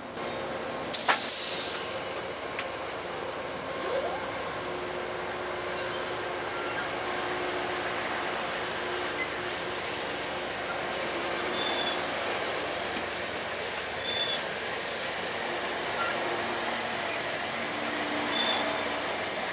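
Amtrak Maple Leaf passenger cars rolling past close by, a steady rumble of wheels on rail. A short loud burst comes about a second in, and in the second half brief high squeaks from the wheels recur every second or so.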